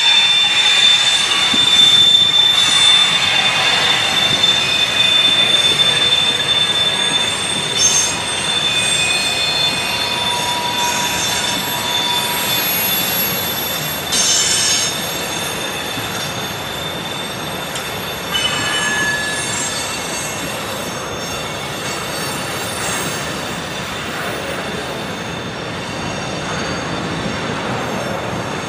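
Freight train of tank cars rolling past on a curve, the wheel flanges squealing in several high, thin, steady tones that come and go over the rolling rumble of the wheels. The sound slowly fades.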